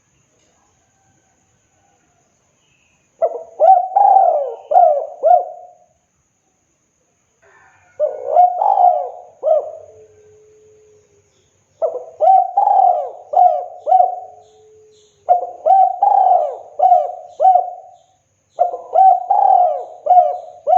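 Spotted dove cooing its song: five phrases of three or four coos each, separated by pauses of about a second, the first starting about three seconds in.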